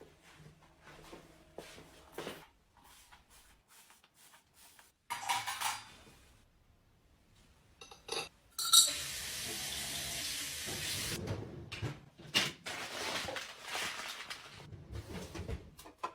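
Kitchenware being handled: scattered clinks and clatter of dishes and utensils, with a loud steady hiss like running water from about nine to eleven seconds in.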